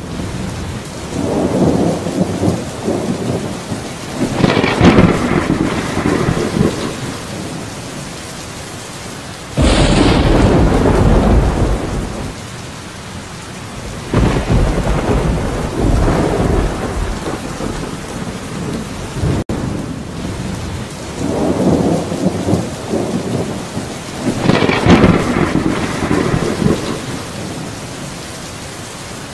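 Steady rain with several rolls of thunder that swell and fade; one breaks in suddenly and loud about ten seconds in.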